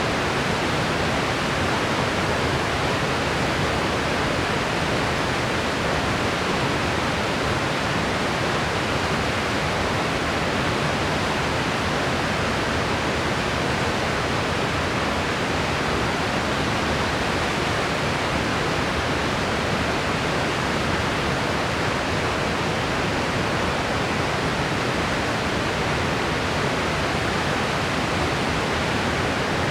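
Steady white noise: an even, unchanging hiss spread across the whole range, with no rise, fall or separate events.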